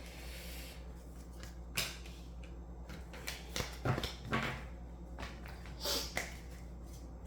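Tarot cards being shuffled and handled, with a few scattered soft taps and slaps over a low steady room hum.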